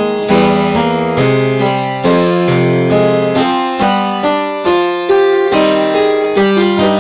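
Harpsichord being played: a continuous run of plucked notes and chords over a bass line, each note with a sharp attack, changing about two or three times a second.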